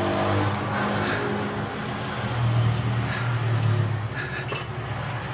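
Light metallic clinks of a small hand tool working on the steel parts of a motorcycle rear shock absorber held in a bench vise, with a cluster of sharp clinks about four seconds in, over a steady low hum.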